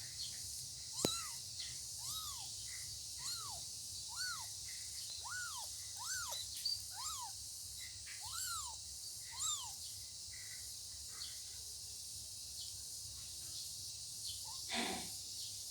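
Kittens meowing: about ten short mews, each rising and falling in pitch, in the first ten seconds, over a steady high hiss. A click comes about a second in, and a brief rustling noise near the end.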